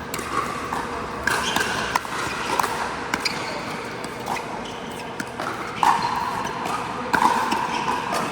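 Pickleball paddles striking a hard plastic ball: a scatter of sharp pops at irregular intervals over a steady background din.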